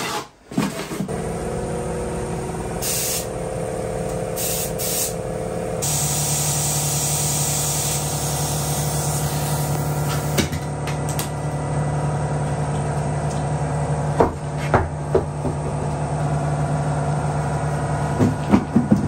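Compressed air hissing through a tyre inflator into a knobbly trailer tyre on its steel rim, over the steady hum of a running air compressor. The hiss starts about six seconds in, and a few sharp clicks and knocks come in the second half.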